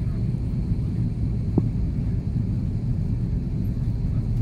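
Airbus A330-300 cabin noise heard from a window seat behind the wing: a steady low rumble of its Pratt & Whitney engines and airflow on descent. A single short tick sounds about a second and a half in.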